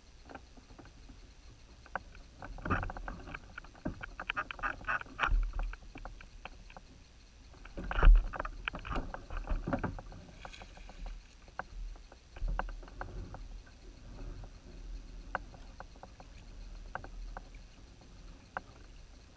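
Scattered clicks and knocks from rod, reel and gear being handled aboard an Old Town Predator plastic fishing kayak. They come in two flurries, with the loudest knock about eight seconds in, over faint water and wind.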